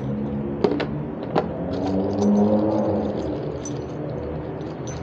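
A motor vehicle going by, its engine hum swelling and then fading away, with a few sharp clicks in the first second and a half.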